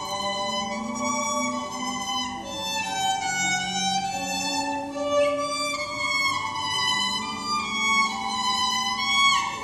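Solo violin playing a slow melody of held, bowed notes, with a slide down in pitch near the end.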